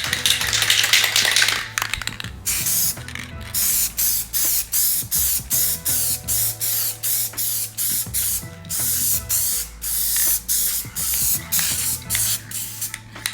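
Aerosol spray paint can spraying a coat: one longer hiss of about two seconds, then a rapid series of short spurts, two or three a second.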